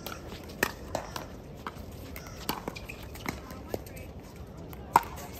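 Pickleball paddles hitting the hard plastic ball during a rally: a string of sharp, irregularly spaced pocks, the loudest about five seconds in. Faint voices in the background.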